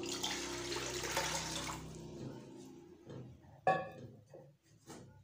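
Water poured from a steel jug into an aluminium pressure cooker, splashing loudly for about two seconds and then dying away. A single sharp knock sounds a little later.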